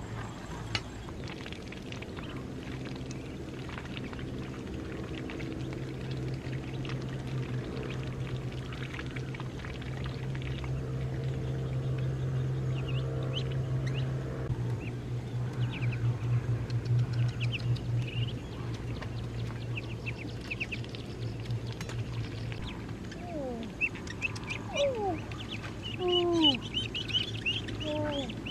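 Ducklings peeping and ducks calling, with several short falling calls and high chirps in the last few seconds, over a steady low hum.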